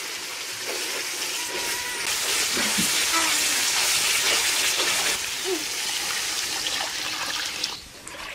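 Thick onion-and-spice curry masala sizzling and bubbling hard in a hot metal wok as it is stirred, with a steady steamy hiss that swells for a few seconds in the middle and drops off near the end.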